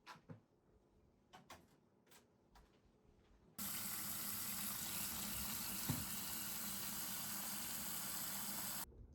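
White liquor (clear shochu) being poured into a jar: a steady trickling stream of liquid that starts suddenly about three and a half seconds in and stops abruptly near the end, with one soft bump partway through. A few faint clicks come before the pour.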